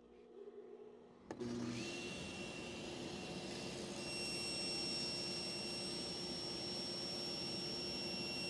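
SawStop industrial cabinet table saw switched on about a second and a half in, its motor spinning up to a steady high whine, with dust collection running, while a throat-plate insert is pushed into the spinning blade to extend its slot.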